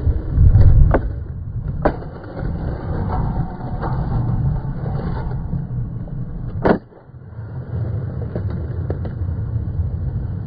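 Skateboard wheels rolling on concrete with a steady low rumble, a couple of sharp clacks in the first two seconds, then a grind on a low metal rail ending in one loud slap of the board landing, after which the wheels roll on.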